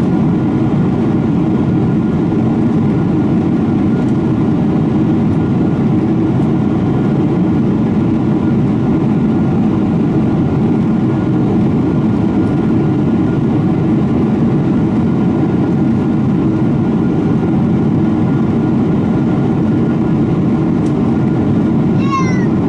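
Steady cabin noise of a Boeing 777-300ER in the climb: its GE90-115B turbofans and the rushing airflow make an even, low-pitched rumble inside the cabin.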